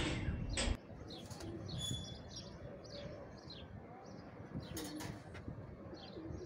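Small birds chirping again and again, with domestic pigeons giving a few short low coos. In the first moment there is a louder rush of noise that cuts off abruptly under a second in.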